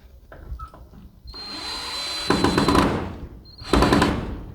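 Power drill driving screws to fasten a gutter downspout, run in two bursts: a longer one of about a second and a half starting about a second in, louder at its end, then a shorter one near the end, each with a steady high motor whine.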